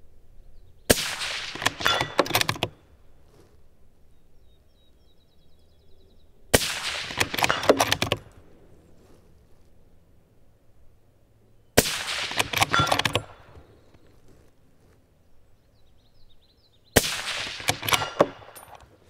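Four suppressed shots from a 6.5 Creedmoor bolt-action rifle, a Bergara B14 HMR, about five seconds apart. Each shot is followed by a second or so of metallic clatter as the bolt is cycled, with the clang of the steel target being hit.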